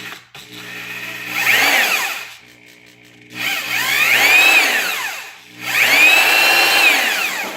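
Corded electric drill run three times in short bursts; each time the motor's whine rises in pitch as it speeds up, then falls as it slows.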